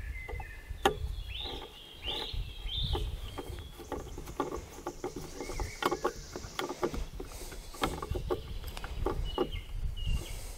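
Steel nipple wrench turning the nipple back into the breech of a percussion muzzleloading rifle: a run of small irregular metal clicks and scrapes as the nipple is screwed in tight, after black powder was fed through the flash channel to clear a misfired charge.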